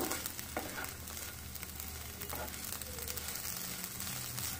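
Okra and grated coconut frying in oil in a pan, a faint steady sizzle, with a few light clicks of the spatula against the pan as it is stirred.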